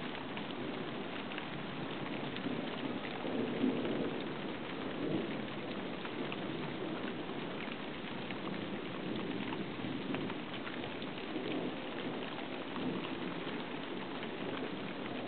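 Heavy thunderstorm rain falling steadily, with many small drop taps. A low rumble of thunder swells about four seconds in, and fainter rumbles follow later.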